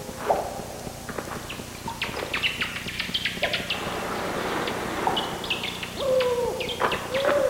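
Animal calls: a few low hoots that glide downward, the longest near the end, over many short, high squeaks and chirps that start about two seconds in.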